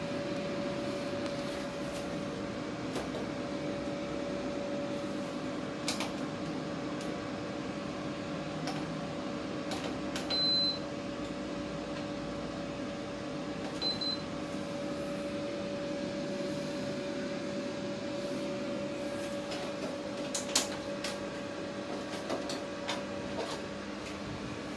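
Daikin FTV25BXV14 split air conditioner's indoor unit running with a steady hum and air rush. About ten seconds in it gives a short high beep, and a shorter one comes about three seconds later: the unit acknowledging remote-control commands. A few sharp clicks are also heard.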